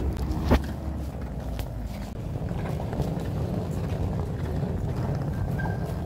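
Street ambience outside a city railway station: a steady low rumble of traffic, with a single sharp knock about half a second in.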